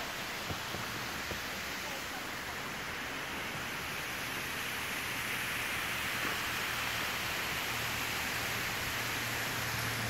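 Steady rushing of a mountain waterfall, an even roar of falling water that swells a little midway. A low hum comes in near the end.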